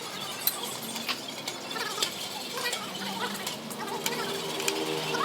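Irregular metallic clicks and clinks from hand tools and gearbox parts being worked on.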